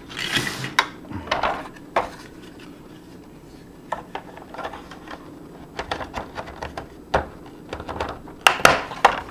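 Hard plastic toy helicopter parts handled and pressed together: scattered clicks, taps and brief scrapes as a side panel is fitted onto the fuselage, with a cluster of sharper clicks near the end.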